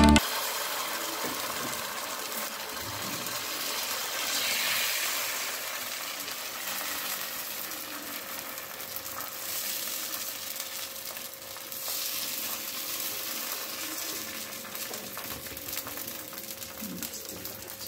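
Rice and urad dal batter sizzling on a hot greased nonstick tawa as the thin soru chakli pancake cooks: a steady soft hiss that swells a little a few seconds in, with a faint steady hum underneath.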